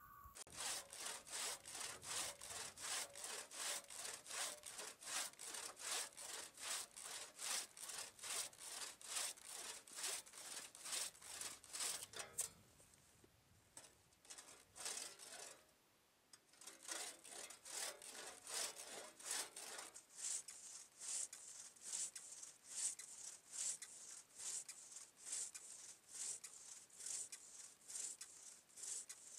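Restored, freshly sharpened four-foot one-man crosscut saw cutting through a log in quick, even strokes, about two or three a second. The sawing stops for a few seconds around the middle, then starts again a little softer.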